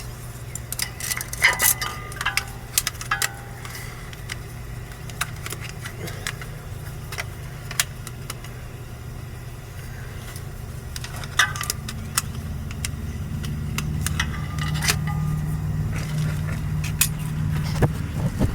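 Small metal hand tools clinking and clanking, some knocks briefly ringing, in scattered bursts. Beneath them a motor vehicle's engine hum grows louder over the second half.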